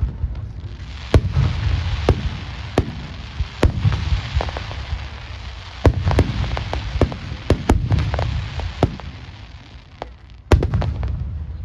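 Fireworks display: aerial shells bursting in quick succession, sharp reports with low rumbles over a continuous crackle. The bursts thin out, a last strong one comes about ten and a half seconds in, and the sound fades.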